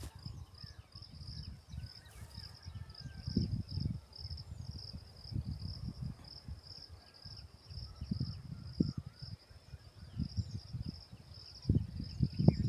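A chirping insect repeats a high, even chirp about three times a second without a break. Irregular low rumbling sounds underneath, loudest about three seconds in and again near the end.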